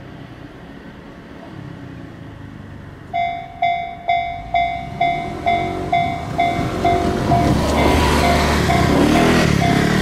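A Japanese railway level-crossing alarm starts about three seconds in, an electronic bell dinging about twice a second. Under it the rumble of an approaching train swells and becomes the loudest sound near the end.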